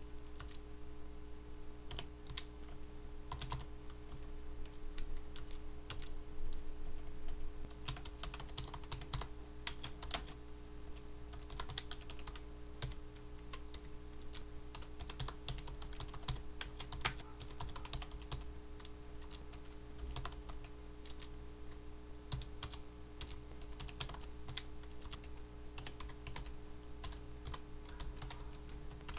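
Typing on a computer keyboard: irregular runs of keystroke clicks, in quick bursts with short pauses, over a steady low electrical hum.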